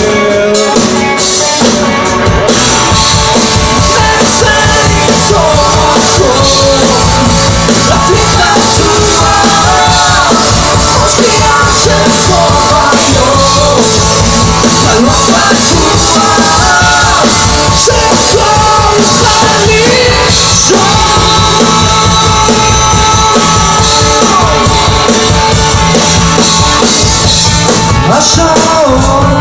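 A rock band playing live and loud: electric and acoustic guitars and drums with a lead singer's voice over them.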